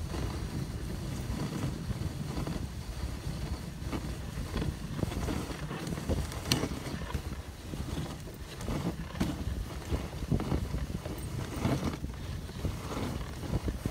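Dog sled gliding over a packed snow trail: a steady rumble and hiss of the runners, with uneven scrapes as it rides over the snow and one sharp click about midway. Wind buffets the microphone.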